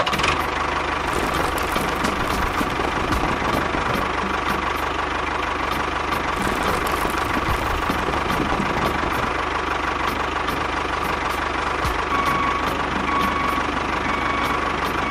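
Small motorised model machine running steadily, with a constant whine over a dense mechanical rattle.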